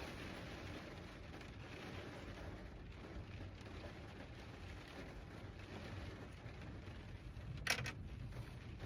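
Faint steady background hiss with a short double click near the end, as parts are handled while being fitted to the mini motorbike.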